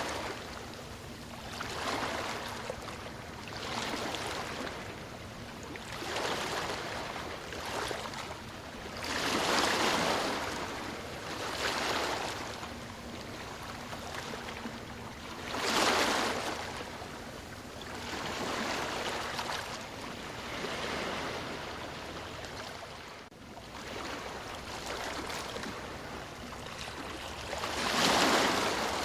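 Ocean waves washing in and breaking, the sound swelling and falling back every couple of seconds, with larger surges about halfway through and near the end.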